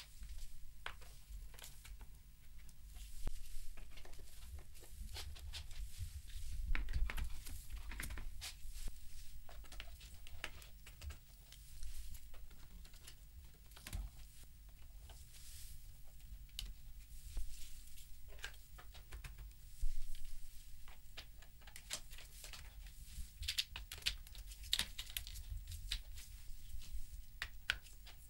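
Plastic marble run track pieces being handled and fitted together: irregular clicks and knocks of plastic on plastic with rustling, and one louder knock about 20 seconds in.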